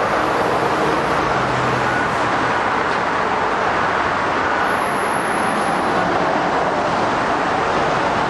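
Steady traffic noise: an even, unbroken din with no separate events standing out.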